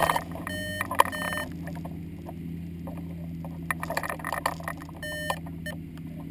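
A steady low engine hum, with runs of short high electronic beeps in the first second and a half and again around five seconds in.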